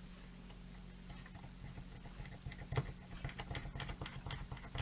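A flux pen being pressed and tapped against a circuit board: a quick run of light clicks and taps starting about halfway, the loudest just under three seconds in, over a steady low electrical hum. The flux is running out freely, enough to spill onto the table.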